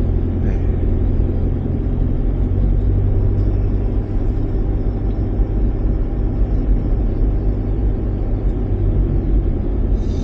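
A vehicle travelling along a road: steady low engine and road noise mixed with wind, with no changes or separate events.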